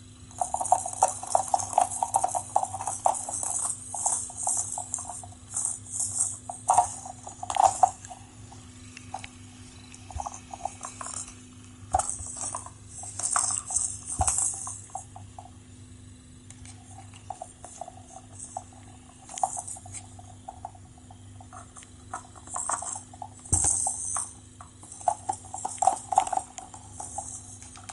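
Cats batting at a sisal-covered scratching roller toy, the small sand-filled balls inside rattling and clattering in irregular bursts that come and go.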